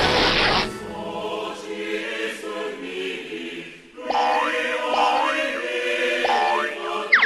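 Background music with choir-like singing, overlaid with cartoon sound effects: a noisy crash at the start that fades within about half a second, and a quick falling whistle just before the end.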